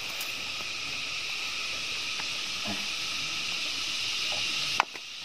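Steady high-pitched chorus of buzzing insects. A faint click and a brief dip in level come near the end.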